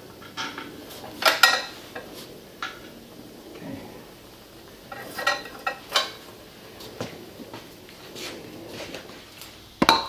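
Scattered metallic clinks and knocks as the rear wheel of a 1995 Kawasaki Vulcan VN800 motorcycle is worked out of the swingarm, a few of them ringing briefly; the loudest knock comes near the end.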